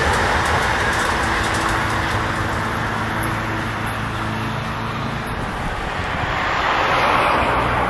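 Amtrak train with a GE Genesis diesel locomotive passing and running away down the track: a rushing rumble of wheels on rail with a steady low engine hum. The noise eases off, then swells again near the end.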